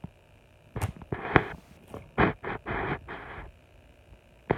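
Rustling and scraping handling noise in short bursts, with a couple of sharp clicks about a second in, from a phone being moved around in the hand.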